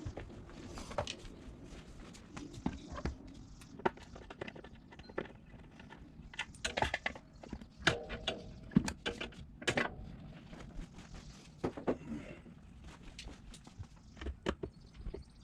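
Hand tools and small metal parts clicking and clanking in an irregular patter, from work on a motorcycle's carburetors. The strongest knocks come around the middle, near eight to ten seconds in.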